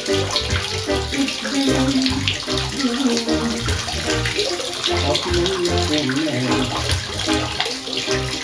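Water jets from a small pump-driven fountain falling and splashing steadily into a plastic tub, with a melody of held notes and a pulsing bass underneath.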